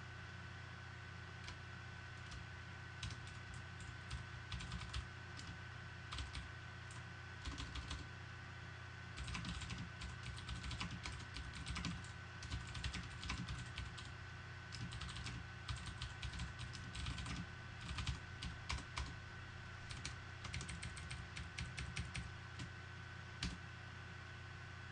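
Typing on a computer keyboard: quick keystroke clicks in irregular bursts, over a steady low hum and a faint high steady tone.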